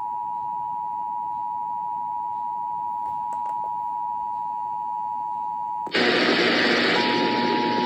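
EAS two-tone attention signal, the steady paired tones of about 853 and 960 Hz. About six seconds in, a loud hiss of static comes in over it. The lower tone drops out for about a second, then returns.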